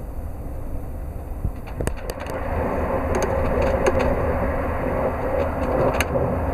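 Running noise of a TGV EuroDuplex double-deck high-speed train, heard inside the passenger car: a steady low rumble with hiss that gets louder about two seconds in. A few sharp clicks stand out, around two seconds in and again near the end.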